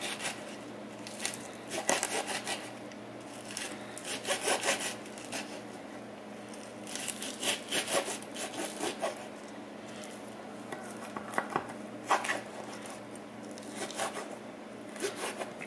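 Chef's knife chopping cooked bacon on a wooden cutting board, in repeated bursts of quick taps of the blade on the board with short pauses between.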